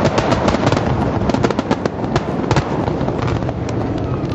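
Fireworks going off, a rapid run of sharp crackling pops, many a second, over a continuous rumble of bursts.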